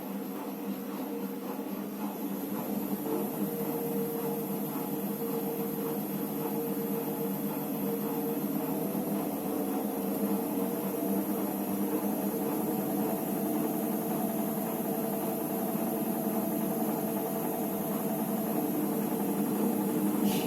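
Electrolux EWT 1377VIW top-loading washing machine running with a steady mechanical hum that slowly grows louder, with a few shifting tones partway through.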